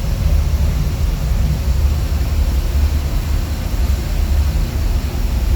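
Steady low rumble of running boiler-room machinery, unchanging throughout.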